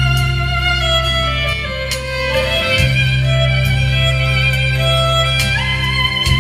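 Solo violin playing a slow melody, sliding up into a higher note near the end, over a steady low bass accompaniment.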